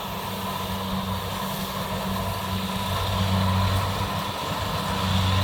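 Kubota DC70 combine harvester running steadily while harvesting rice, its engine giving a steady low hum.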